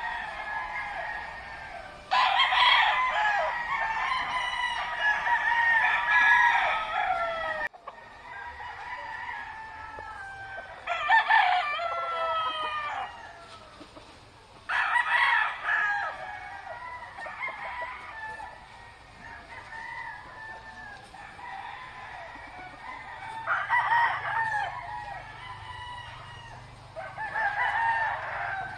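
Roosters crowing again and again, one crow after another with some calls overlapping, some loud and near, others fainter and farther off.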